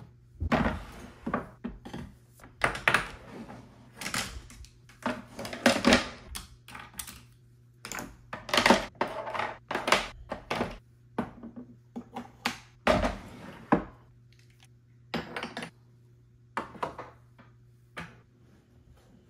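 Small makeup items and containers being picked up, set down and shuffled in and on a wooden vanity and its drawers: a quick run of clicks, knocks and short rattles that thins out in the last few seconds, over a faint low hum.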